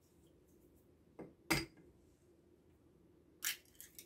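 An egg is knocked against the hard rim of a bowl: a light tap, then a sharp crack about a second and a half in. Near the end come a few shorter cracks as the shell is pulled apart.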